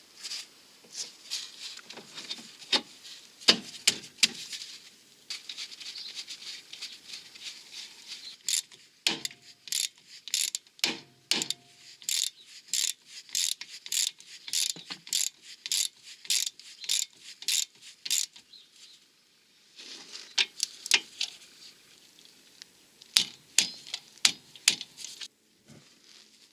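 Hand ratchet wrench clicking in a steady run of about two clicks a second as the track rod end nut is tightened, with scattered clicks and metal knocks of tool handling before and after.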